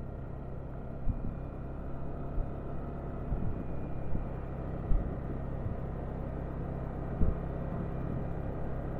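A vehicle's engine running steadily on the move, a low hum with a few brief knocks scattered through.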